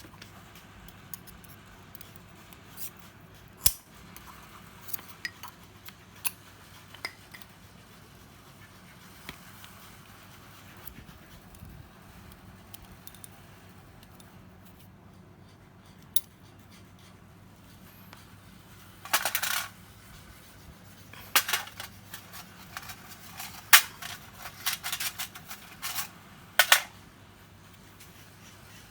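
Small metal parts and hand tools clinking and clattering on a work surface. At first there are scattered light clicks, then a busier run of sharp clinks and a short rattle in the last third.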